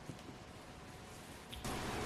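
Slime being kneaded by hand: soft squishing with a small click just after the start, growing louder about one and a half seconds in.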